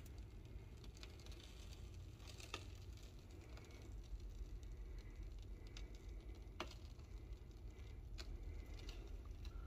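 Faint, scattered cracks and ticks, a few seconds apart, over a low hum: a finished garage wall creaking as expanding post foam swells inside the cavity behind it. The owner takes it for the wall cracking, though he also wonders whether it is rain outside.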